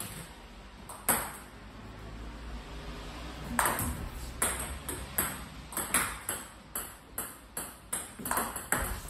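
Table tennis ball being served: sharp clicks of the ball off the paddle and bouncing on the table, one click about a second in, then a quick string of clicks from about a third of the way through.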